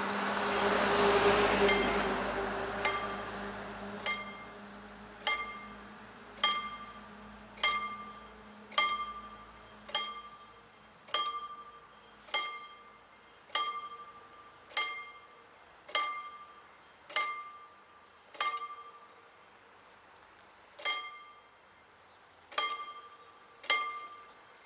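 Mechanical pre-warning bell (Vorläutwerk) of a level crossing with mechanically worked barriers, striking single ringing strokes about every 1.2 seconds, each fading before the next, with one beat missing about three-quarters of the way through; it warns that the barriers are about to be lowered for a train. A lorry drives past in the first couple of seconds.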